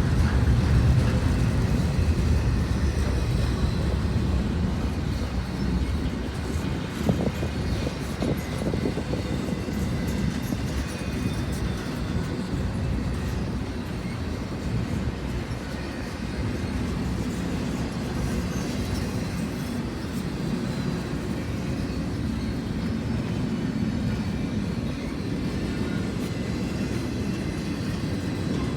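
CSX intermodal freight train rolling slowly past: a steady low rumble of wheels on rail, a little louder in the first few seconds, with a few faint clicks.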